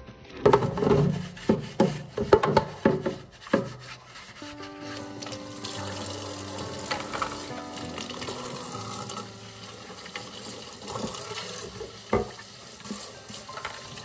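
Plastic wrap crinkling loudly and irregularly as it is pulled off a plastic tray for the first few seconds. Then a kitchen tap runs steadily into a metal sink while a clear plastic piece is rinsed and scrubbed, with a few light knocks.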